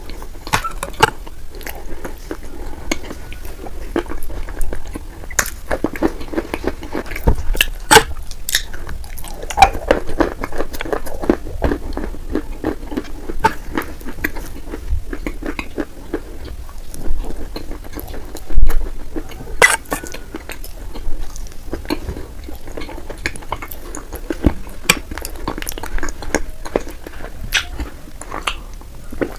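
Close-up eating sounds of wet clay paste: a metal spoon clinking and scraping against a glass bowl, and wet chewing of clay mouthfuls, with irregular sharp clicks throughout.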